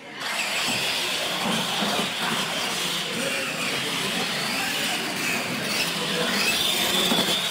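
Two radio-controlled monster trucks launch off the start line and race, their electric motors and gear trains whining, with their tyres loud on the concrete floor. The noise starts abruptly right at the beginning and stays steady, with the whine shifting in pitch as they run.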